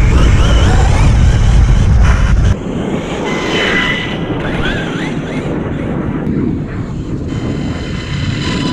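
Axial RYFT RC rock bouncer on stock tires driving at speed across sand on a 4-cell battery, its electric motor and drivetrain whining up and down in pitch as the throttle changes. A loud low rumble covers the first two and a half seconds and stops sharply.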